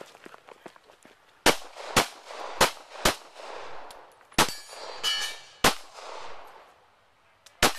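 Seven pistol shots at an uneven pace: four in quick succession, then three more spread out with gaps of a second or two. Steel targets ring after some of the shots.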